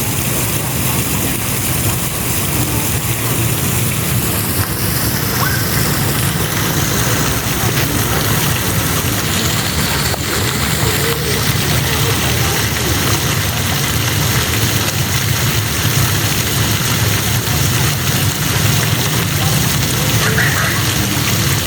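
Water falling in a steady shower of spray, a continuous even rush of splashing with no let-up.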